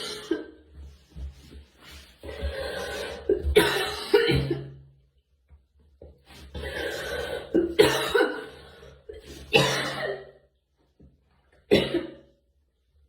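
A girl coughing in fits: three bouts of coughs with short quiet gaps between them, then one single short cough near the end.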